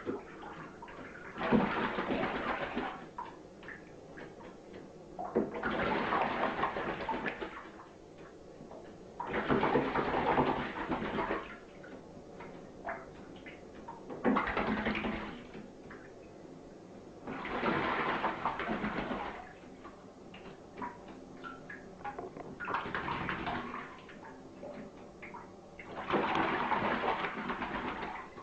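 A blackbird bathing in shallow water, splashing in short bursts of a second or two, about seven times, with small drips and flicks between them.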